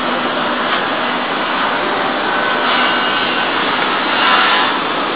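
Steady, loud rushing noise, with a faint steady tone about halfway through and a brief swell about four seconds in.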